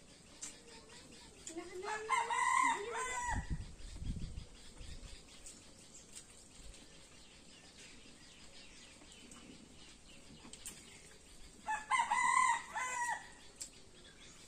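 A rooster crowing twice, about ten seconds apart, with a brief low rumble just after the first crow.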